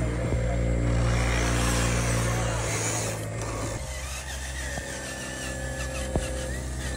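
Motors and gearing of radio-controlled construction models (6x6 dump trucks and an excavator) running with a steady mechanical hum that changes character about four seconds in.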